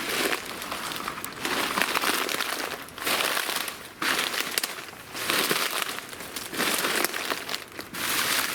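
Footsteps crunching through dry leaves and brush, a step about every second.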